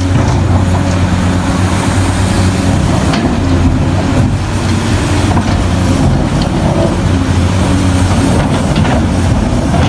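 Heavy earthmoving machinery running steadily: the deep, even engine note of a big excavator or dump trucks at work, over a dense mechanical din.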